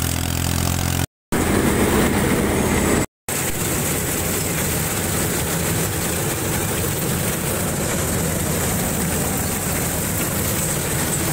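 An old tractor's diesel engine running in two short pieces, each cut off abruptly, then from about three seconds in a combine harvester working a crop: steady engine and machinery noise.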